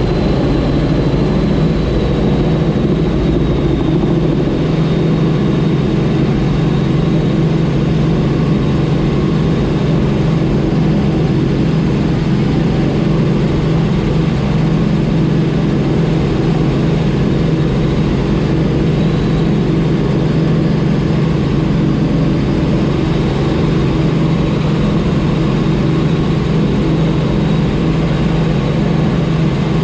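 Helicopter cabin noise in steady cruise: the even drone of the engine and rotors, with a faint thin high whine running through it.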